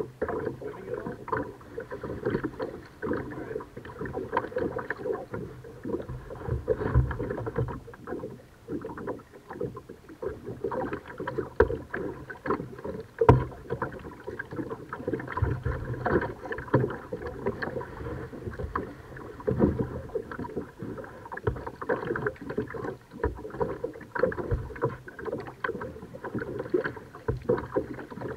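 Kayak paddling: the paddle blades dip and splash in the water in an irregular run of small splashes, with a few louder low thumps now and then.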